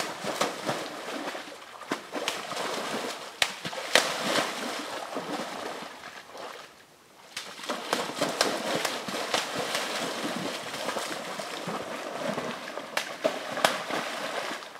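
A young elk splashing about in a shallow pool, the water sloshing and splattering in irregular bursts with sharp slaps, and a short lull about halfway through.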